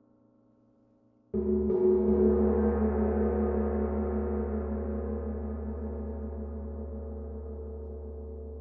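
Large hanging gong struck once with a mallet about a second in, its tone swelling briefly and then ringing on in a long, slow decay with a deep low hum.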